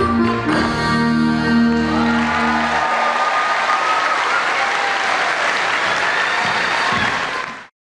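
Irish traditional dance music ends on a held final chord about three seconds in, and audience applause follows, stopping abruptly near the end.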